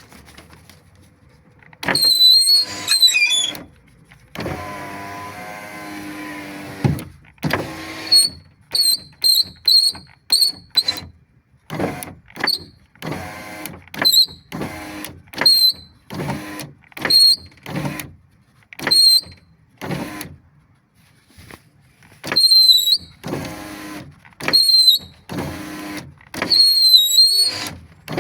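Subaru Legacy power window lift (window regulator and motor) run over and over in short jabs and a few longer runs, each run a motor hum with a high-pitched whistle from the lift over it. The whistle is the fault being shown.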